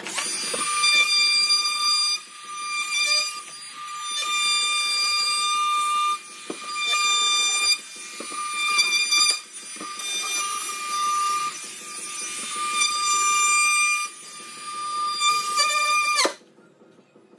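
DeWalt cordless random orbital sander running as it sands pine panel framing, a steady high whine whose loudness rises and falls as the pad is pressed and moved over the wood. It switches off abruptly about a second before the end.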